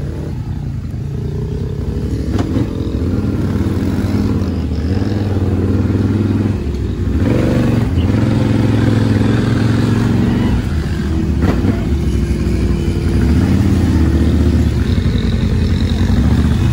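ATV engine running under way, growing louder over the first few seconds and then running steadily, its pitch rising and falling with the throttle.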